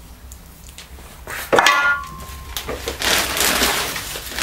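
A sharp clink with a short metallic ring about one and a half seconds in, then a rough, steady scraping hiss as a knife blade is handled.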